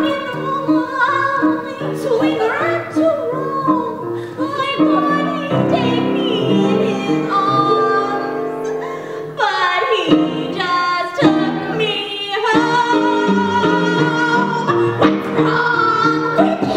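A woman sings over instrumental accompaniment in a stage musical. Her voice makes wide swooping slides in pitch, including steep falls about two and a half and ten seconds in.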